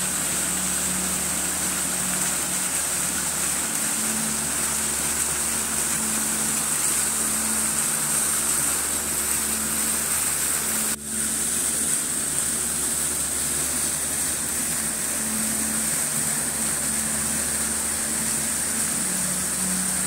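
Steady rush of water flowing through an old watermill's channel and pouring into a round basin, splashing continuously, with a brief break about eleven seconds in.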